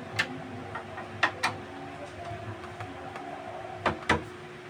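Sharp metallic clicks and taps from door knob lockset parts being handled and fitted: a single click near the start, then two close pairs, one about a second in and one near the end.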